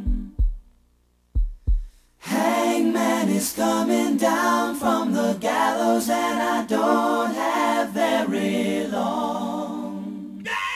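Background music: an a cappella vocal group singing held chords in close harmony without words that can be made out. Near the start there is a short gap broken by four low thumps, two and two.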